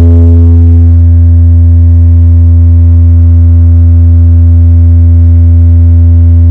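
Very loud, steady low bass tone from a large sound system's subwoofers, held on one pitch with a stack of overtones: a test tone played while the rig's subs are being checked and tuned.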